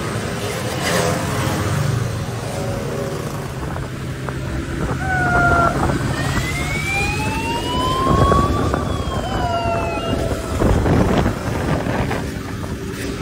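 Motorcycle engines running among a crowd of riders, with a police siren sounding midway for about five seconds: a steady tone, then a slow rising and falling wail that stops suddenly.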